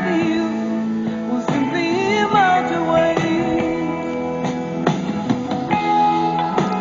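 Music: a guitar-led track with a gliding lead melody over sustained notes.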